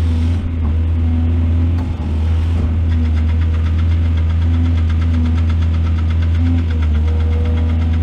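Heavy excavator's diesel engine running steadily with a deep drone. From a few seconds in until near the end, a fast, even rattling ticks over the engine sound.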